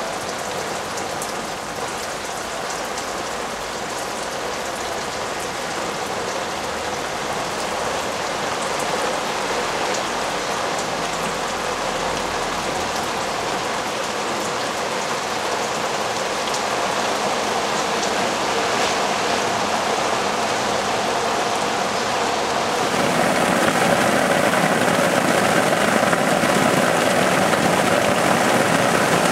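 Rain-like water falling steadily onto a clear plastic sheet, growing gradually louder and turning heavier about 23 seconds in.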